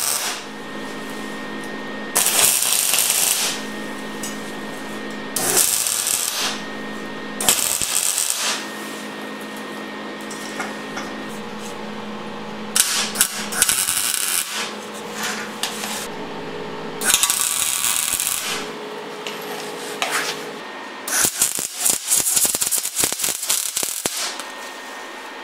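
Arc welding on steel tube: about six separate welds, each a crackling burst of one to three seconds, the last one longest, near the end. A steady hum runs between the welds.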